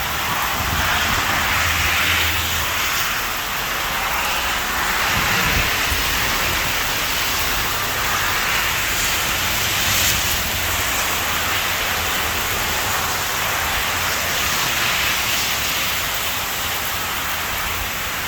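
Steady heavy rain, a dense even hiss that swells and eases every few seconds.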